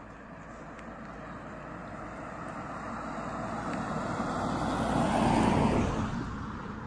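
A van drives up and passes close by on an asphalt road: engine and tyre noise growing steadily louder, peaking about five and a half seconds in as it goes past, then fading.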